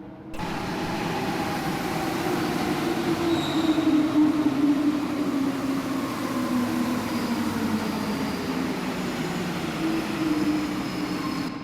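Santiago Metro NS-16 train running on Line 2, a loud steady running noise. Its motor tones slide slowly down in pitch, then climb again near the end.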